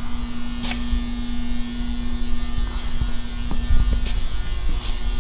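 Steady electrical hum with a low rumble underneath and a few faint clicks; the hum drops away near the end.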